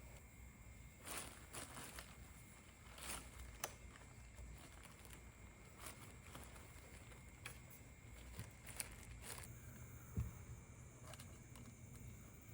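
Faint, scattered clicks and light scraping of small engine parts being handled, against a low steady hum.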